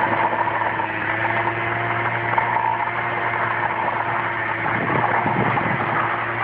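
Small scooter engine held at steady revs while the rear tyre spins in place on the road, a stationary burnout throwing dust out behind the wheel.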